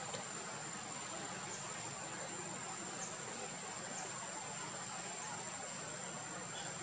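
Steady outdoor ambience: an even hiss under a continuous high-pitched insect drone, with a few faint short chirps.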